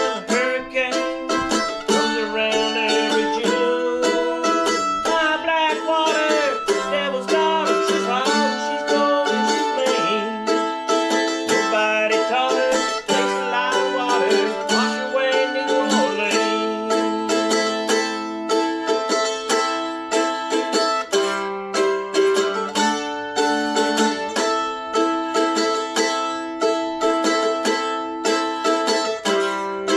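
Mandolin playing an instrumental passage between verses of a song: steadily picked notes and chords, with some sliding notes in the first half.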